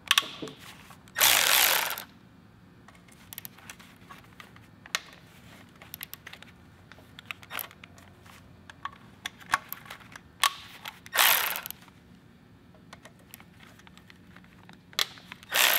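Cordless Milwaukee ratchet whirring in three short bursts as it spins out BMW S54 oil pan bolts, with scattered light clicks of the ratchet and bolts between the bursts.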